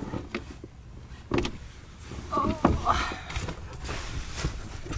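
Rummaging through bedding and gear in the back of a vehicle: fabric and sleeping bag rustling, with scattered knocks and bumps of things being moved.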